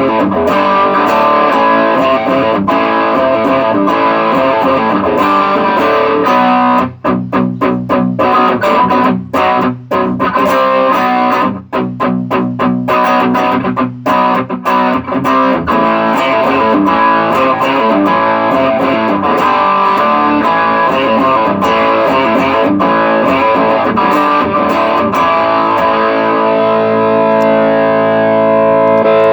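Electric guitar played through a TC Electronic Nova Drive overdrive/distortion pedal, playing distorted chords. From about 7 to 15 seconds in it switches to short, choppy strokes with brief gaps, then goes back to sustained ringing chords. The level stays steady, with the pedal working normally after its gain and volume pots were replaced.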